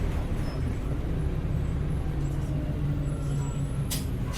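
Heuliez GX317 city bus with an LPG engine, heard on board while under way: a steady low engine and drivetrain rumble, with a brief hiss about four seconds in.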